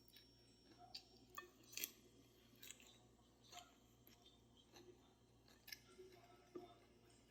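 Faint open-mouthed chewing: short wet smacks and clicks of the mouth at irregular moments, roughly one a second.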